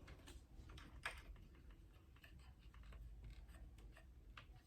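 Faint, irregular clicks and light taps over a low background hum, one a little sharper about a second in.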